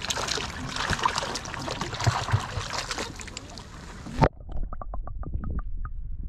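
Water pouring from a drum into a lake and splashing at the surface right beside a GoPro action camera, with many small clicks of water on the microphone. About four seconds in, the camera goes under with a sharp knock, and the sound turns dull and muffled, with a quick run of small underwater clicks.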